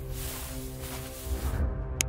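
Background music of sustained held tones, with a rushing noise swelling over it until about one and a half seconds in and a sharp click at the very end.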